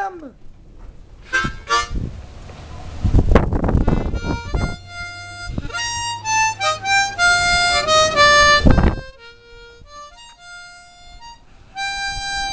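B-flat harmonica played by ear: a run of single notes stepping up and down in pitch, a pause, then notes again near the end. A thump about three seconds in.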